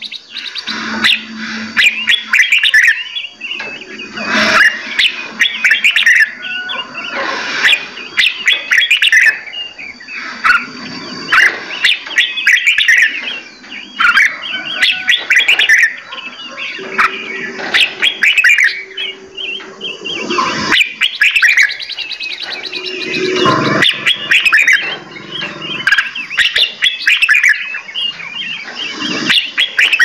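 Several songbirds chirping and singing over one another in a dense, unbroken chorus of quick high notes and trills, with a sharp click now and then.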